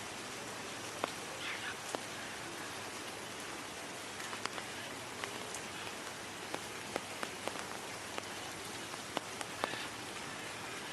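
Steady rain falling, with many scattered individual drop hits sounding above the even hiss.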